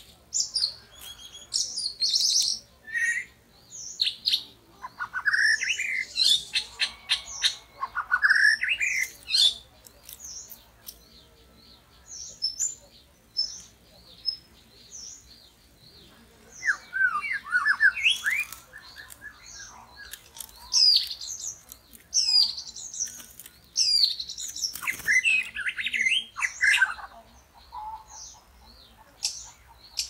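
White-rumped shamas calling: clusters of sharp, repeated high chirps and whistled notes that sweep upward, with short quiet gaps between the flurries.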